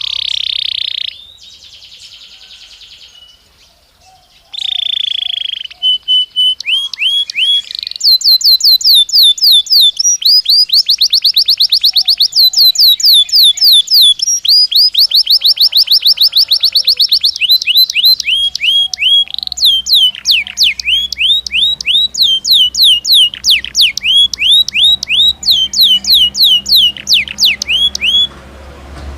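Belgian canary singing a long song. It opens with a few short buzzy rolls, then runs into long, very fast series of repeated downward-sweeping whistled notes, and slows to separate, more spaced sweeps before stopping near the end.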